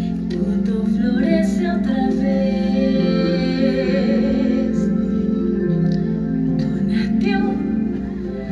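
Music with a woman singing long held notes with vibrato.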